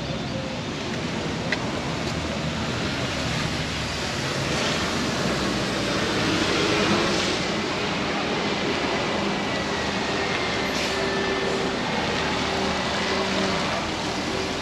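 Street traffic on wet pavement: a steady hiss of tyres and passing vehicles, with a faint engine hum and a slight swell in the middle.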